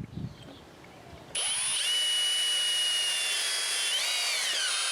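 Electric drill starts about a second in and runs steadily, boring a pilot hole into very hard purpleheart wood; its whine dips in pitch near the end as the bit loads up in the hard wood. A small knock comes just before it starts.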